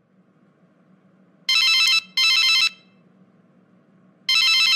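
Telephone ringing in a double-ring pattern: a pair of short trilling rings about a second and a half in, then a second pair near the end, over a faint low hum.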